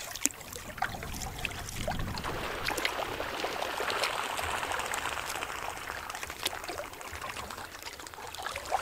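Lake water splashing and trickling along a canoe's hull as it moves, with scattered small drips and splashes; the rush of water swells louder in the middle.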